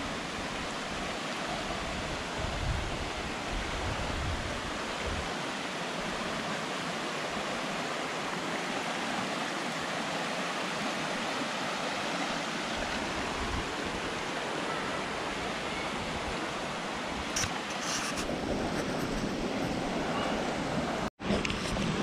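A rocky forest creek running over small cascades and rapids: a steady, even rush of water, broken by a brief silent gap near the end.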